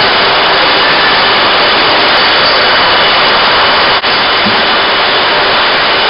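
Steady, loud, even rush of packaging-line machinery, with no separate stapling strokes standing out. It dips briefly about four seconds in.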